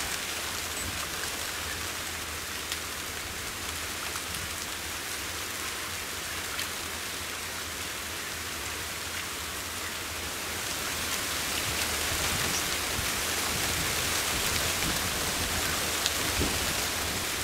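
Muddy pond water being stirred and splashed by hands groping for fish: a steady, rain-like hiss with scattered small ticks, growing a little louder about two-thirds of the way through.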